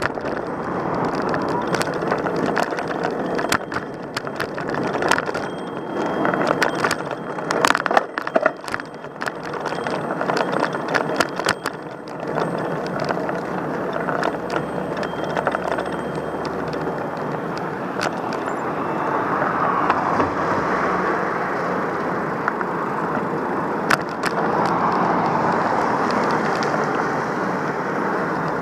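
Steady rushing road and traffic noise. Many sharp clicks and rattles run through roughly the first twelve seconds, with only a few after that.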